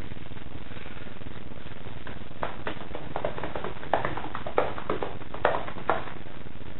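Paintbrush stroking water-based gloss onto a panelled interior door: a run of short brushing taps of bristles on the painted surface, coming in quick succession from about halfway through, over a steady hiss.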